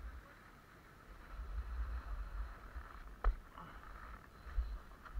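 Skis sliding and scraping on snow under gusts of wind rumbling on the microphone, with a sharp click a little over three seconds in and another near the end.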